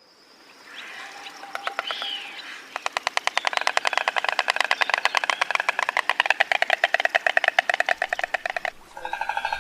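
Stork clattering its bill: a rapid, even rattle of clicks that starts about three seconds in and stops abruptly near the end, with a few fainter clicks before it.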